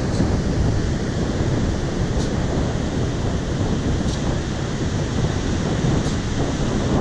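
Wind buffeting the microphone over steady ocean surf, a continuous rumbling noise.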